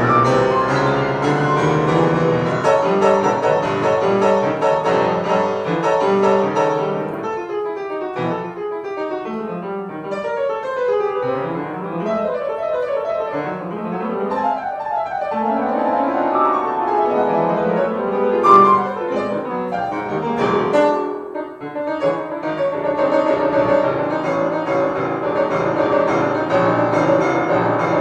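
Solo grand piano playing a jazz improvisation: full chords, giving way about seven seconds in to fast runs up and down the keyboard, then back to full chords after a brief pause a little past twenty seconds.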